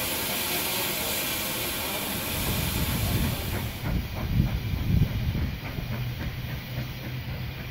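BR Standard Class 5MT 4-6-0 steam locomotive standing in steam, hissing steadily as steam escapes by its cylinders. About four seconds in, the sound cuts suddenly to a low, uneven rumble.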